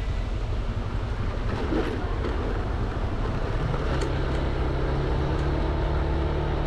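Honda Vario 160 scooter's single-cylinder engine running under way, with low wind and road rumble. From a little past halfway its note settles into a steady, even hum.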